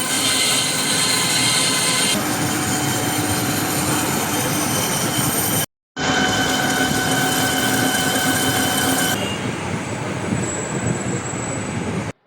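Worm gear speed reducer running under its motor with a steady mechanical whine. The sound drops out briefly near the middle, starts again, and stops suddenly at the end.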